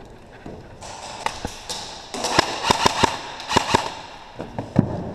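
Airsoft gunfire: a loose string of sharp cracks, most of them between about two and four seconds in, with one more near the end.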